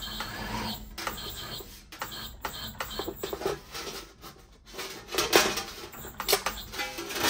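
Thin 0.6 mm stainless steel sheet being run through a sheet-metal rolling machine: irregular clicking and scraping rattles from the rollers and the flexing sheet, with the loudest clatter about five seconds in. It is a second pass to make the curve rounder.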